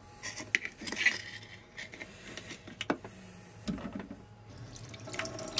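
Small knife scraping and clicking against scallop shells as the white meat is cut free, a few sharp clicks at irregular moments among quieter scrapes.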